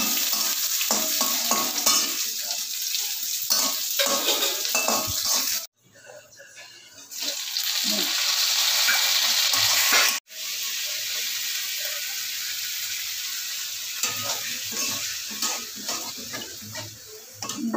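Oil sizzling in a kadhai as sliced onion, garlic and then chopped tomato are fried for the kadhi tempering, with a metal spatula scraping and stirring against the pan. The sizzle cuts out abruptly twice, about six and ten seconds in.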